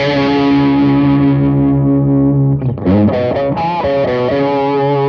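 Electric guitar played through a Blackstar JJN20 MkII amp with a distorted tone: a long sustained note, then a quick phrase with a string bend about three seconds in, settling into another held note.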